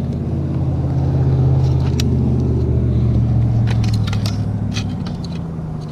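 An engine running with a steady low hum that fades away over the last couple of seconds, with a few light metallic clinks.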